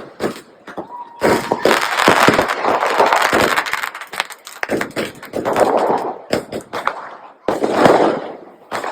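Firecrackers going off in rapid crackling volleys of many sharp bangs, loudest in spells about two, six and eight seconds in.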